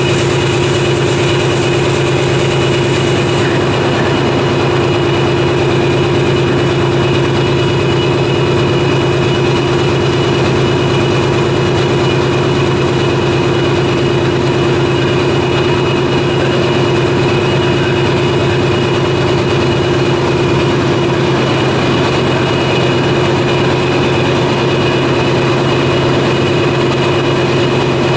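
Ship's engine-room diesel machinery running: a loud, steady drone with a constant hum.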